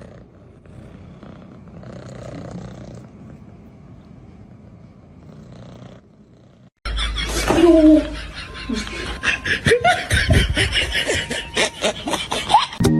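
A faint low hum, then an abrupt change about seven seconds in to loud laughter with excited voices.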